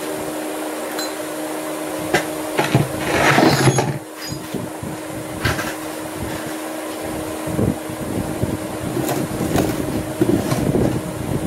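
Knocks, clunks and scraping of a minibike frame being lifted and shifted and a plastic case being moved on a concrete floor, loudest about two to four seconds in. Under it runs a steady mechanical hum.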